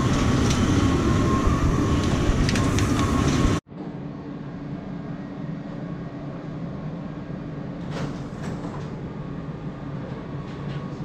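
Automated shoe roughing machine running loudly, its milling head and brushes grinding the bottom of a cycling-shoe upper to prepare it for glue. It is a dense steady noise with a steady tone in it, and it cuts off suddenly a few seconds in. After that comes the quieter steady hum of factory machinery, with a brief clatter near the end.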